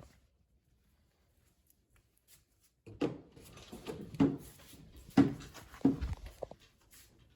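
Near silence, then about three seconds in a series of footsteps begins, roughly one step a second, consistent with walking down the stairs.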